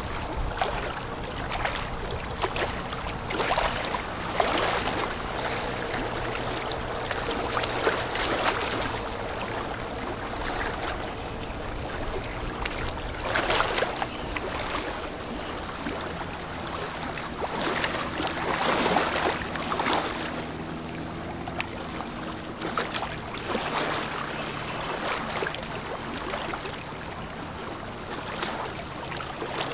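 A boat engine drones steadily over the rush of river water, with repeated louder surges of noise every few seconds.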